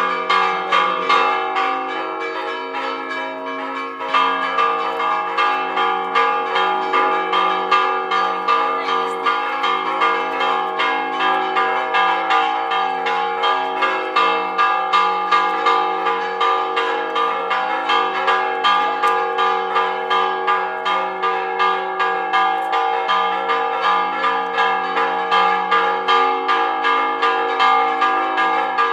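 Church tower bells rung in a Spanish repique: quick, even strikes a couple of times a second over the bells' long ringing hum. The strikes stop briefly about two seconds in and start again about four seconds in.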